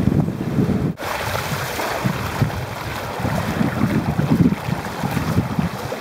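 Wind buffeting the microphone over water rushing and splashing along the hull of a Hobie sailboat under sail, with a brief dropout about a second in.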